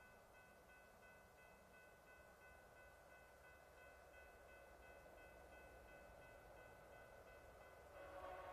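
Railroad crossing bell ringing faintly in steady repeated strokes, over a low rumble that slowly grows as a train approaches. Near the end a train horn begins to sound, a chord of several steady notes.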